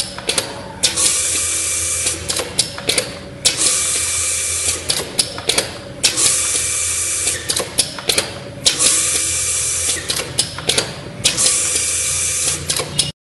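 Pneumatic machine running an automatic cycle about every two and a half seconds. Each cycle is a hiss of compressed air lasting about a second, followed by a quick cluster of clicks and knocks from the valves and cylinders, over a steady low motor hum. The sound cuts off suddenly near the end.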